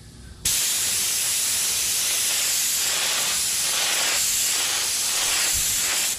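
Air-driven primer spray gun with a bottom cup spraying thick polyester primer: a steady, loud hiss of compressed air that starts abruptly about half a second in and stops at the end. The gun is set to higher air pressure and reduced fluid volume to atomize the thick primer smoothly.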